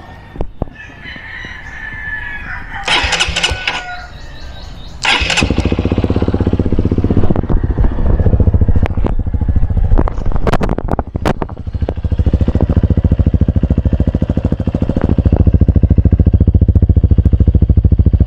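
A rooster crows, then about five seconds in a Honda CRF150's single-cylinder four-stroke engine starts and settles into a steady idle. It runs through an Exos X-6 exhaust with its silencer removed, an open pipe.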